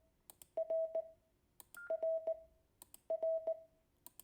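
Morse code tone, a single steady beep pitch, sending the letter R (di-dah-dit) three times in evenly spaced groups, with sharp clicks at the start and end of the elements.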